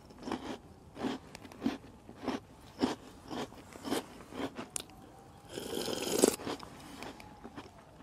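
A person chewing a crunchy cookie close to the microphone, with a crunch a little under twice a second. A longer, louder noise comes about five and a half seconds in.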